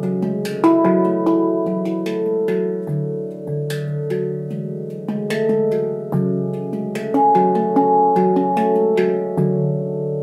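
Leaf Sound Sculpture handpan tuned to C# Locrian, played by hand: a steady run of struck notes that ring on and overlap, with the low notes sustaining beneath the higher ones.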